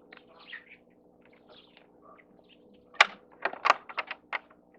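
Chickens chirping and clucking softly, then a quick run of about six sharp knocks or clicks about three seconds in, which are the loudest sound.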